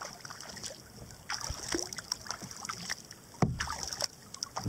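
Kayak paddle strokes: the blades of a double-bladed paddle dipping and pulling through river water in an uneven series of splashes and drips. A louder knock comes about three and a half seconds in.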